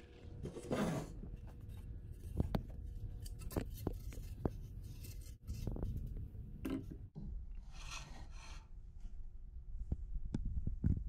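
Wooden parts being handled: scattered sharp knocks and clicks of wood on wood, with a scraping rub near the start and another about eight seconds in.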